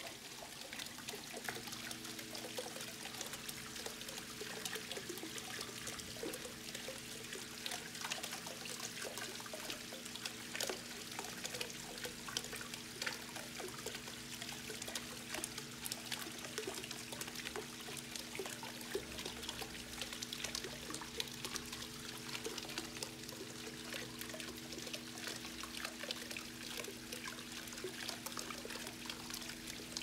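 Water from a weeping wall spilling off the ledges of its stacked stone tiles and splashing into the pool below: a steady, busy trickling patter of many small drops.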